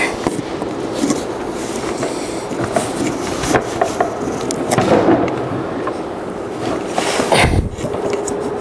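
A wooden cabinet on caster wheels being tipped and turned over by hand: scattered wooden knocks and clunks from the box and its casters, with one heavy thump about seven and a half seconds in as it comes down.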